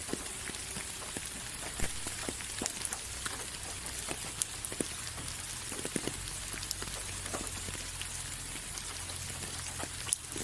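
Steady rain falling, with a constant hiss and many separate drops striking a surface at irregular moments.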